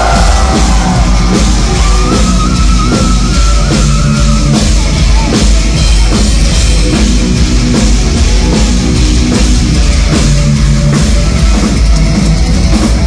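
Live heavy metal band playing an instrumental passage at full volume: drum kit and electric guitar, without vocals.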